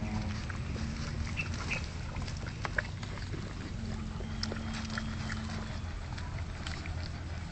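Puppies moving about among rocks, with scattered small clicks and scuffs over a steady low hum.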